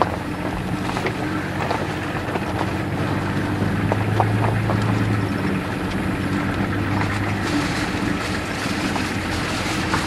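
Vehicle engine running and road noise heard from inside a slowly moving car, a steady low hum with small clicks and rattles; the hum swells briefly about four seconds in.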